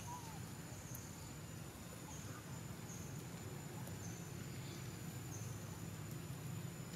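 Outdoor insect ambience: a steady high thin whine with a short high chirp repeating about once a second, over a steady low hum.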